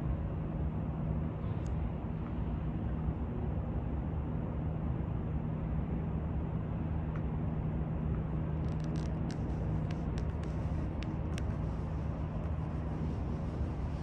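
Steady low rumble with a constant low hum aboard the cruise ship Wonder of the Seas as it sails out of port. A few faint clicks come about two-thirds of the way in.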